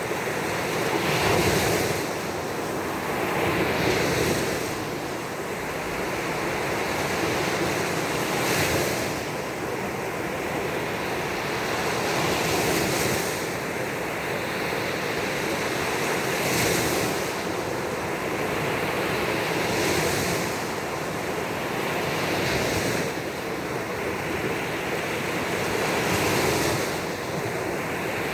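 Baltic Sea waves breaking and washing up on a beach, a continuous surf that swells every few seconds.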